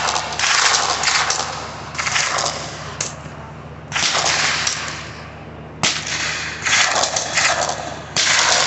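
Suppressed guns firing along a firing line: many overlapping bursts and shots, each starting sharply and trailing off. The bursts follow one another with short lulls, and there is one sharp crack about six seconds in.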